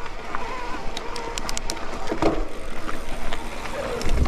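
Mountain bike ridden over a wet trail: tyre and riding noise with rattles from the bike, a cluster of sharp clicks about a second in, and wind buffeting the microphone near the end.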